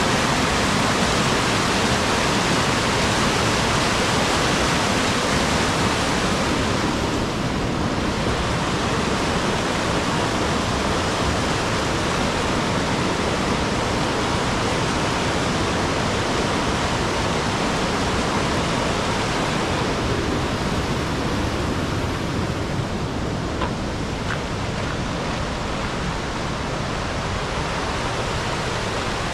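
Waterfall rushing steadily: a loud, even wash of falling water with no break.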